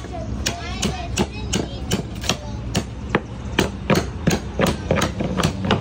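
Steady hammer blows on a chisel, about three strikes a second, chiselling rotted wood out of the base of a porch column.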